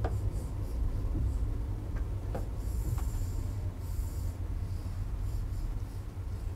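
Stylus drawing on a touchscreen smartboard: a few light taps and short, faint scratchy strokes over a steady low hum.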